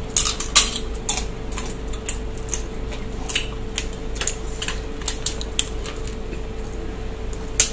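Steamed mud crab shells being cracked and broken apart, a string of irregular sharp cracks and clicks, over a steady low hum.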